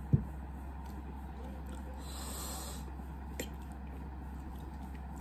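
Close-miked eating sounds: a loud gulp just after the start as a mouthful of mango shake is swallowed, then quiet chewing and breathing, with a breathy snort through the nose about two seconds in and a small fork click a little later.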